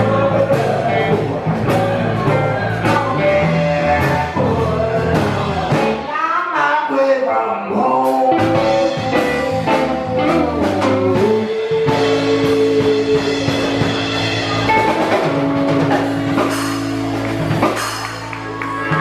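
Live blues-rock band playing with a singer, drums and guitar. The low end drops out briefly about six seconds in, and the second half carries long held notes.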